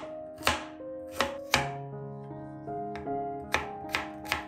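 Chef's knife chopping garlic cloves on a cutting board: about six sharp knife strikes against the board at an uneven pace, with a pause in the middle. Soft piano background music plays underneath.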